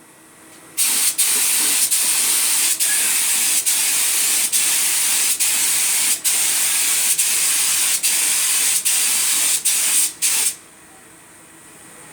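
Paint spraying onto metal: a long, loud, steady hiss that starts just under a second in and cuts off near the end, with brief dips roughly once a second.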